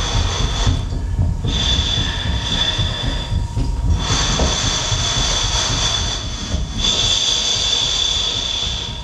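Experimental electronic noise music made from amplified body sounds processed live in Pure Data. A dense low rumble runs under high, steady whistling tones, and the whistling cuts out briefly about three times before coming back.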